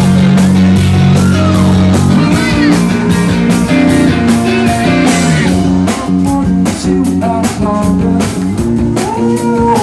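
A live rock band playing an instrumental passage: electric guitars with bending notes over bass and a steady drum kit beat.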